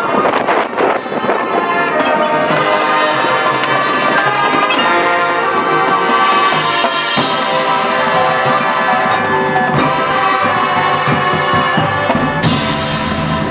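High school marching band playing, brass and drums together, with bright cymbal-like crashes about halfway through and again near the end.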